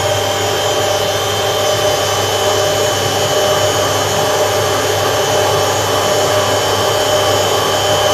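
Hotpoint First Edition WMA 9 washing machine running on a replacement motor under test: a steady motor whine with drum noise and a constant low hum, unchanging throughout.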